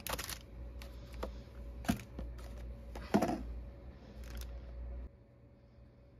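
Handling noise from a plastic lunch box tray and its paper sleeve: a few sharp clicks and knocks with rustling between, the loudest knock about three seconds in. A low steady hum underneath stops about five seconds in.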